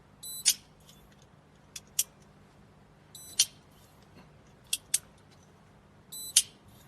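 Fingerprint padlock giving a short high beep as it reads a finger, each beep followed at once by a sharp click of the lock opening, three times about three seconds apart. Lighter single clicks come in between.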